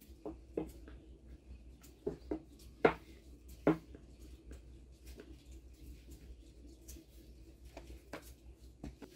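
Thin wooden rolling pin rolling out dough on a floured wooden board: light knocks and clicks of the pin on the board, the two loudest about three and three-and-a-half seconds in.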